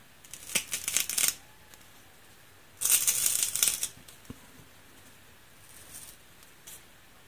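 A high-purity cast zinc bar bent by hand crackles: 'zinc cry', the sound of its crystals twinning under the bending stress. It comes as two bursts of dry crackling, each about a second long, the second, about three seconds in, the louder, followed by a few single ticks.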